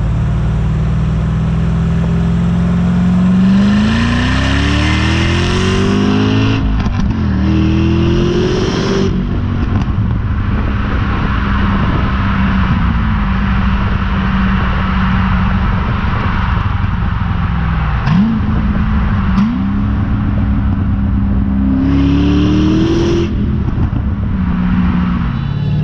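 2006 Corvette C6 Z06's 7.0-litre LS7 V8 being driven hard through the gears on its stock exhaust, with no turbo whistles fitted. The engine note climbs with the revs and drops back at each shift, several times.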